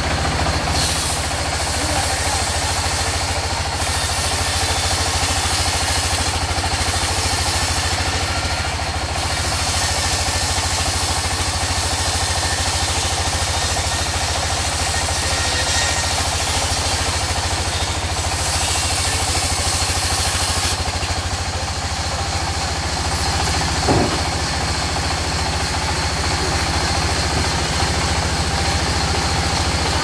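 Sawmill band saw running and cutting lengthwise through a mahogany log: a steady low machine drone under a hissing cutting noise that grows and fades as the log is pushed through the blade. There is one sharp knock about three-quarters of the way through.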